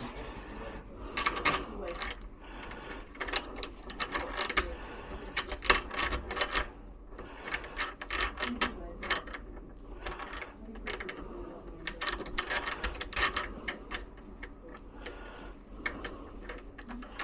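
Irregular metallic clicking and rattling as a door lock's hardware and screws are worked with hand tools during fitting.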